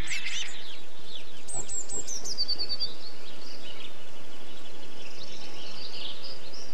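Blue tit nestlings' begging chirps fade out in the first moment. About a second and a half in, an adult blue tit sings a few high notes stepping down into a short trill, followed by fainter calls over steady background noise.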